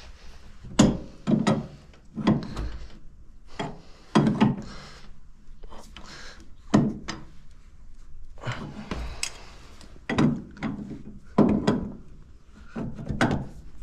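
Hand tools clunking and knocking on tractor metalwork while a fitting is worked and tightened in a cramped spot: about a dozen irregular knocks, some in quick pairs, with scraping between them.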